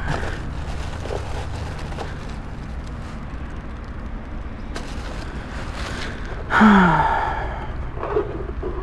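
A steady low rumble, with one short wordless vocal sound, a sigh or grunt falling in pitch, about six and a half seconds in.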